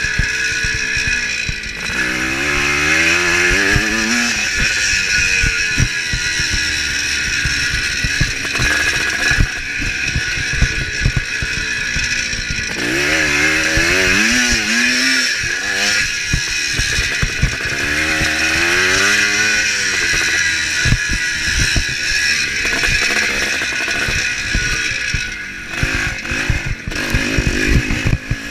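1975 Kawasaki KX400 two-stroke single-cylinder engine revving hard under race load, its pitch climbing and dropping again and again as it pulls through the gears. Short knocks and rattles come in near the end.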